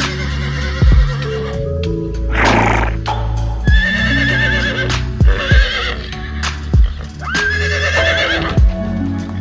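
An animal calling three times, each a wavering high-pitched call of about a second, over background music with a steady low beat.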